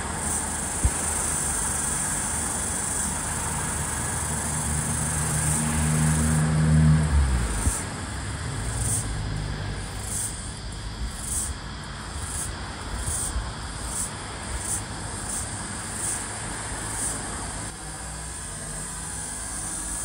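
Floury baker cicada (Aleeta curvicosta) calling: a high-pitched steady buzz that about six seconds in breaks into a pulsing call of a little under two pulses a second, turning steady again near the end. A passing motor vehicle is heard as well, loudest about seven seconds in.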